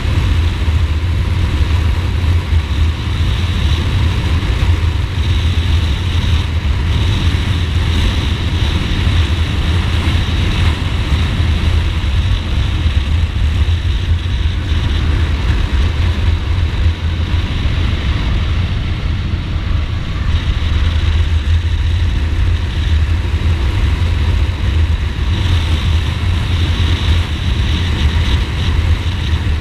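Ducati Multistrada motorcycle riding at a steady pace, its engine and road noise running without let-up, with a heavy low rumble.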